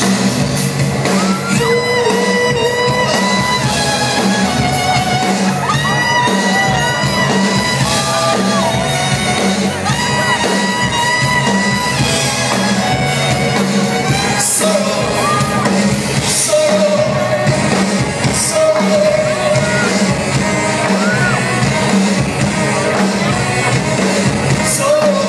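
Live band playing a song with a male lead singer singing over drums and backing instruments, heard from within the audience in a large, reverberant hall.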